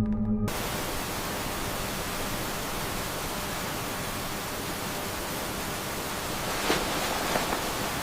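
Steady, even hiss like static, after music cuts off about half a second in, with a couple of faint clicks near the end.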